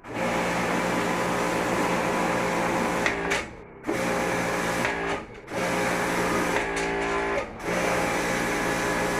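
Electric pressure washer running steadily for drain-line flushing and coil cleaning, cutting out briefly a few times as the trigger is let go and starting again.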